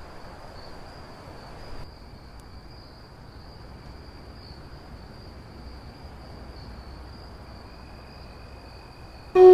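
A faint, steady high-pitched insect trill over low background hiss, with no animal calls.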